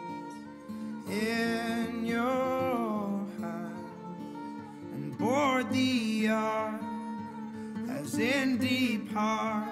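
Folk song as background music: a sung melody with wavering, ornamented notes over acoustic guitar.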